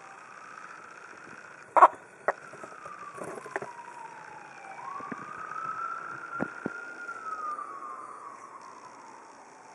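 A siren wailing slowly, its pitch falling and rising over several seconds. A sharp knock about two seconds in, the loudest sound, and a few lighter taps and bumps come from handling.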